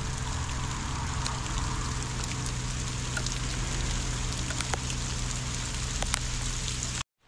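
Rain falling steadily on grass and timber, with scattered sharp ticks of single drops striking, over a steady low hum; the sound stops abruptly near the end.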